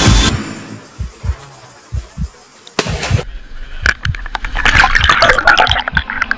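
A person plunging into a river: a sudden splash about three seconds in, then rushing water and bubbling heard from just at and below the surface. Low thumps of background music's bass beat run underneath.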